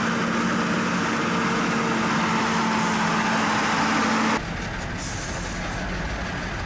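Heavy military truck engine running steadily under load, with a held engine tone and gritty mechanical noise; about four and a half seconds in it cuts abruptly to a quieter, deeper engine rumble.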